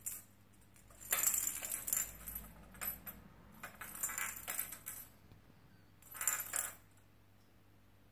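Bell inside a plastic lattice cat ball jingling in several short bursts as a kitten bats and rolls it across a tile floor.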